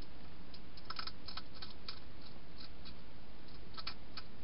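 Wild hedgehog eating: irregular crisp crunching clicks as it chews food, bunched about a second in and again near the end, over a steady hiss.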